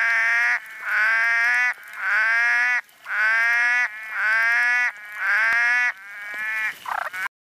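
A frog calling over and over, about once a second. Each call lasts just under a second and dips slightly in pitch, then rises again. The calls stop abruptly near the end.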